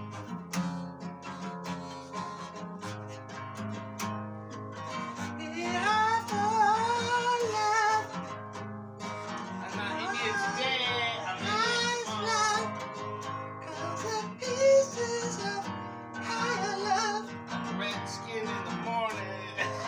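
Strummed acoustic guitar with a voice singing over it; the singing comes in about five seconds in.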